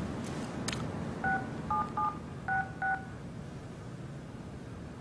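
Telephone keypad dialling: a click, then five short touch-tone beeps in quick succession, each a two-note dual tone.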